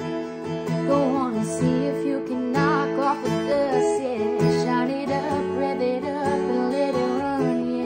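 Acoustic guitar strummed in a country song, with a woman singing over it from about a second in.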